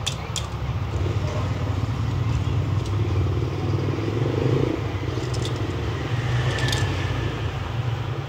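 A steady low hum, with a few light metallic clicks from binder clips being handled on a clamped acrylic amulet frame.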